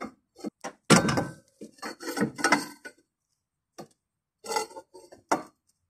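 Irregular metal clanks and scrapes from a long steel pry bar levering a VW Golf Mk5's front lower control arm down, with a pause of about a second midway.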